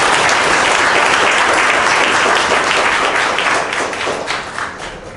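Audience applauding, loud and dense at first, thinning and dying away over the last second or so.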